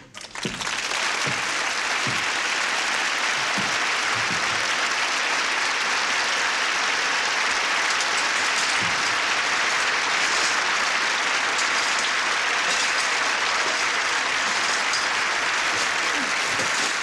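Studio audience applauding steadily. The applause starts about half a second in.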